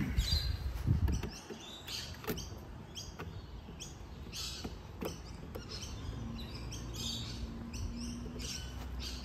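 A bird chirping over and over, short falling chirps about twice a second, with a couple of sharp clicks as the plastic gate latch is handled against the fence post.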